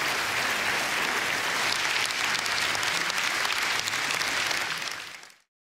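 Audience applauding steadily, fading out to silence near the end.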